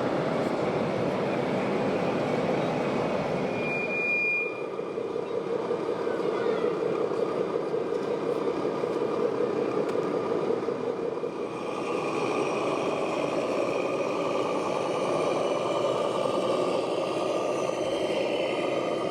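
1/14-scale RC trucks and construction machines running, a steady mechanical din. A short high tone comes about four seconds in, and steady whining tones join from about twelve seconds in.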